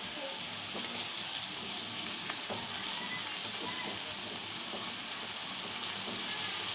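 Chopped potatoes, onions, garlic and green chillies sizzling steadily as they fry in hot oil in a kadhai, with a few faint clicks.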